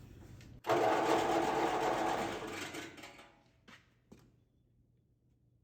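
Benchtop bandsaw's electric motor switched on: it runs with a steady hum for about two seconds, then fades as it winds down. Two short clicks follow. The saw's drive belt is worn and the blade had stopped turning.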